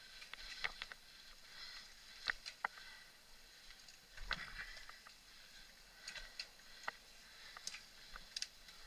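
Mountain bike ridden fast over a bumpy dirt forest trail: irregular sharp clicks and rattles from the bike over the bumps, over a faint steady rush of tyres and air, with a rougher jolt about four seconds in.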